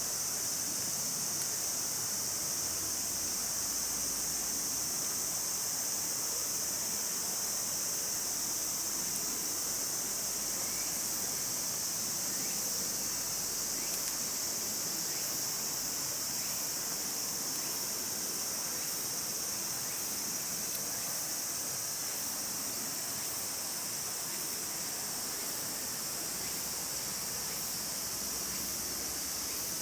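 Steady chorus of insects outdoors: a continuous high-pitched drone that does not pause.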